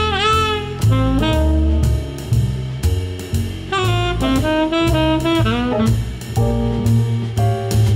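Jazz background music: a horn melody with bending notes over a drum kit and bass.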